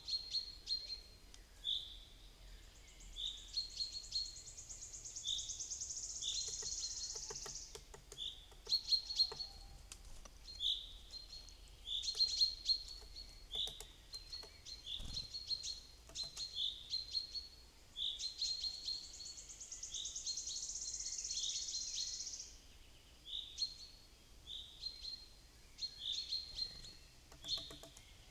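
Wild songbirds calling: short high chirps repeating about once a second, with two long high trills of about four seconds each, one starting a few seconds in and one about two-thirds of the way through.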